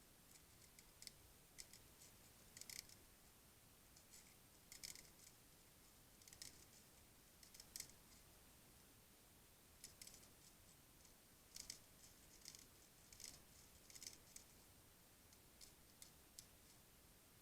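Faint, short, sharp clicks at irregular intervals, some in quick pairs or small clusters, over near silence.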